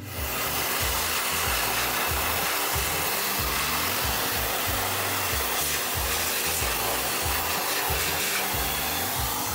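Electric restroom hand dryer blowing steadily and loudly; it switches on abruptly and cuts off after about nine and a half seconds.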